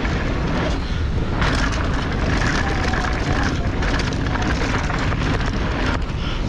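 Mountain bike descending fast on a dirt singletrack: wind rushing over a helmet-mounted camera's microphone, mixed with the tyres rolling on dirt and short rattles from the bike over bumps.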